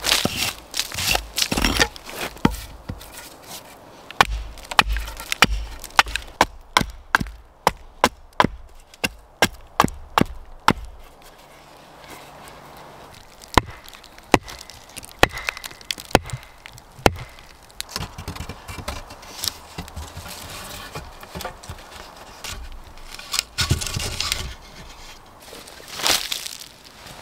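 Small axe chopping wood on a stump, sharp knocks of the blade into the wood at about two a second, with wood chips scattering. Later the strikes grow sparser, and near the end there is a stretch of rustling.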